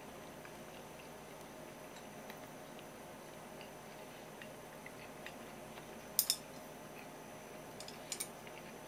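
Chopsticks and porcelain dishes clinking: scattered faint taps, then two sharp clinks a little after six seconds in and two more near the end, over a steady faint hum.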